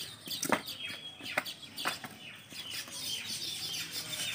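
Small birds chirping and twittering steadily, with three short sharp sounds in the first two seconds.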